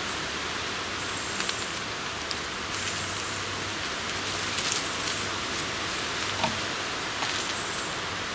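Bramble (blackberry) stems being twisted and pulled tight by hand on leaf litter: a few light crackles and rustles over a steady hiss.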